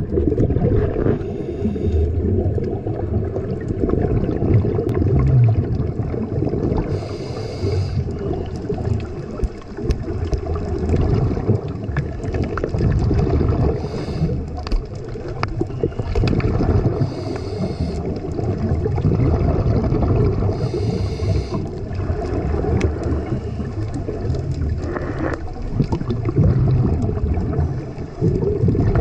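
Underwater sound of scuba divers breathing through regulators: a steady, muffled low rumble with exhaled bubbles gurgling, and a short hiss every few seconds.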